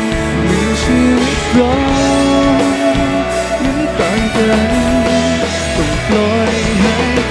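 A pop-rock band playing live: a drum kit with cymbals keeps the beat under guitar and a melody line.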